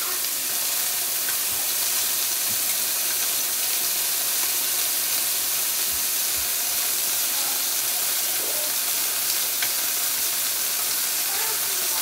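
Chicken pieces sizzling steadily in a hot nonstick frying pan as they are turned over one by one with tongs.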